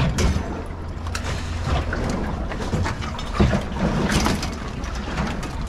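A boat's engine running steadily as a low rumble, with scattered light clicks and knocks from crabs being handled and sorted on deck.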